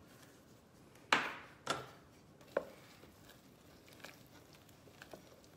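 Seasoning shaker shaken over a pot of split peas: a few short shakes, the loudest about a second in, then a sharp click and a few faint taps.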